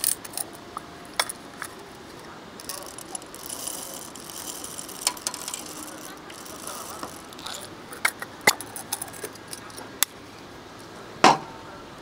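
Scattered clicks, clinks and light knocks of small objects being handled, with a stretch of rustling a few seconds in and a louder knock with a short ring near the end.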